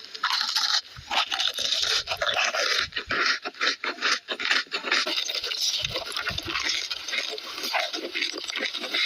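Close-miked ASMR eating: chewing and mouth sounds, a dense run of crackling clicks.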